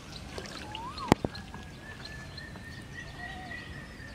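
Birds calling: short rising-and-falling chirps, and a long thin whistle held through the second half. About a second in, two sharp clicks close together stand out as the loudest sound.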